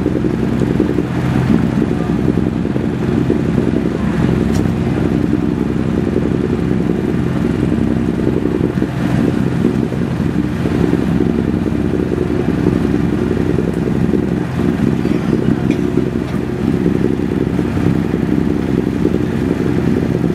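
Boat engine running steadily at constant speed, an even low drone with a fixed pitch, heard from on board the vessel.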